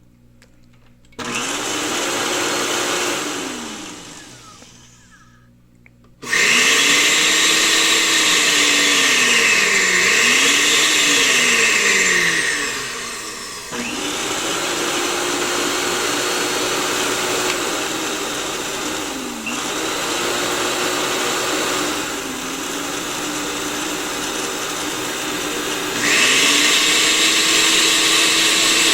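Countertop blenders, a Hamilton Beach quiet model and an Oster, running in turns at louder and quieter levels. The motor pitch sweeps slowly up and down as the load in the jar shifts. One run starts about a second in and winds down within a few seconds, a louder run starts about six seconds in, a quieter run takes over near the middle, and it gets louder again near the end.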